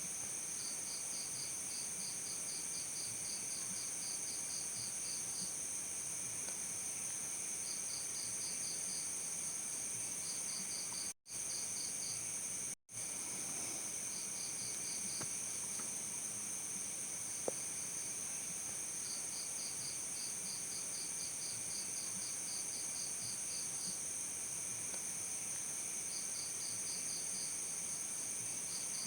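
Crickets chirping: a continuous high-pitched trill with runs of rapid chirps, about four a second, that start and stop every few seconds. The sound cuts out completely for an instant twice near the middle.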